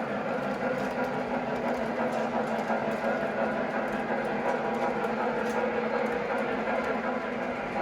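O gauge model train running on the layout's track, a steady motor hum with wheel rumble.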